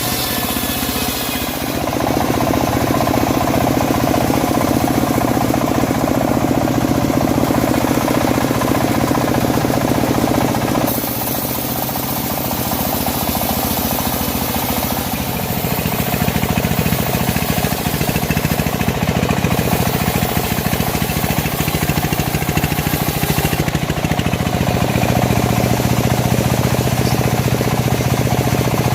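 Homemade bandsaw sawmill running while sawing a teak log, a loud steady mechanical drone. The sound dips and changes about eleven seconds in, and again a few seconds later.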